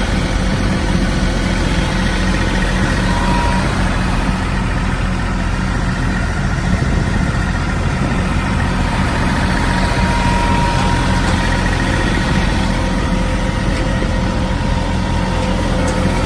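Motor vehicle engine and road noise from a car moving slowly along a road, a steady low hum.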